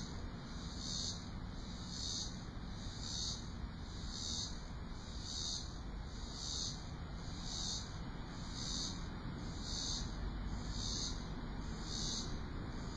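Insects singing in the trees: a high, even chirping that pulses about once a second, over a steady low background rumble.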